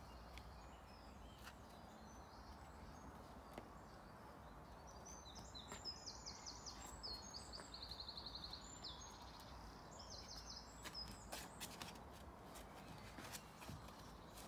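A songbird sings several short phrases of quickly repeated high notes, from about five seconds in to about twelve, over faint outdoor background hiss with a few faint ticks.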